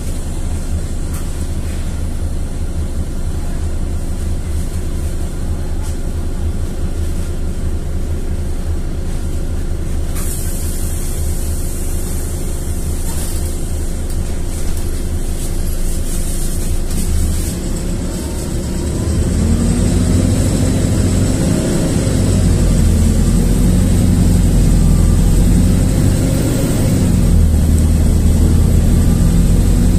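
Interior sound of a LiAZ-4292.60 city bus: its diesel engine runs steadily at low revs, with a brief hiss about a third of the way in. About two-thirds of the way through, the engine drone grows louder and deeper as it pulls under load.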